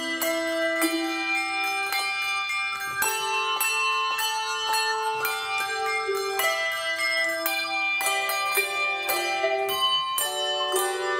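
Handbell choir of five ringers playing a piece: a steady stream of struck bell notes, each ringing on and overlapping the next, a few new strikes every second.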